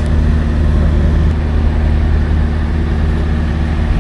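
Steady loud low mechanical hum and rumble, unchanging throughout.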